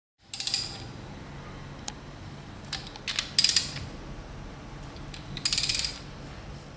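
Ratchet wrench clicking as it turns the hex plugs and bolts on the stainless-steel head of a high-pressure plunger pump: three short runs of fast clicks, with a few single clicks between.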